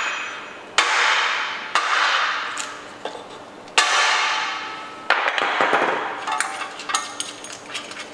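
Four hammer blows on a wooden block held against the camshaft sprocket of a Ford 1.8 TDCi diesel engine, knocking the sprocket loose from its taper; each blow rings out for a second or so. Near the end come light metallic clicks as the loosened sprocket is worked off by hand.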